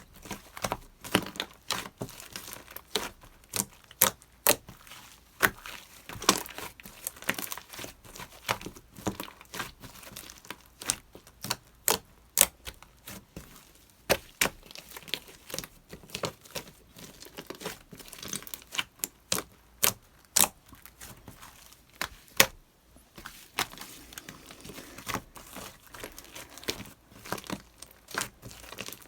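Slime being squeezed and pressed by hand, making irregular sharp pops and crackles a few times a second, with a short pause about three quarters of the way through.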